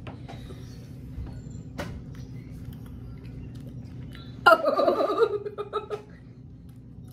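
A short wordless vocal outburst from a woman, about four and a half seconds in, falling in pitch and breaking into a few pulses, over a steady low hum.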